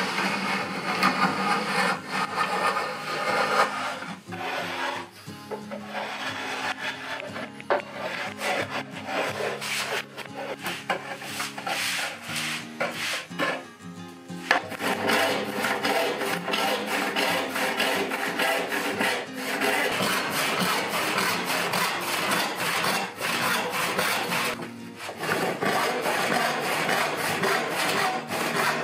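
Metal hand plane taking repeated strokes along the edge of a white oak board, its shavings scraping off, then later a hand saw cutting oak in quick, even strokes. Quiet background music sits under it.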